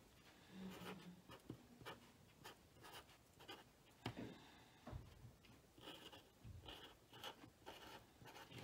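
Marker pen writing on a strip of masking tape wrapped around a wire: faint, short scratching strokes.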